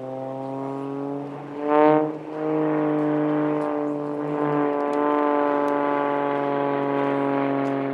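Aerobatic monoplane's piston engine and propeller giving a steady, pitched drone. About two seconds in it swells loudly as the pitch sweeps up and falls back, then settles into a steady drone again.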